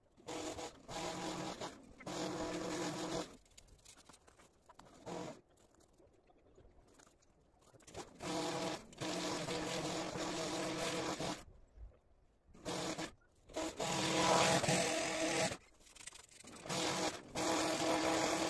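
Hedge trimmer cutting across the top of a conifer hedge, running in repeated bursts of one to three seconds and stopping between them.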